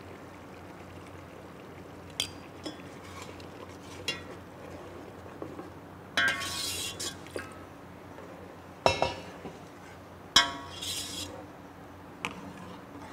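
Steel ladle stirring soup in a stainless-steel pot, clinking and scraping against the metal. The sharp clinks come at irregular intervals, with the loudest pair near the middle and a longer scrape before them.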